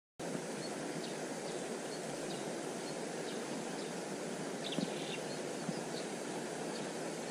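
Steady rush of fast-flowing stream water, with a few faint clicks about five seconds in.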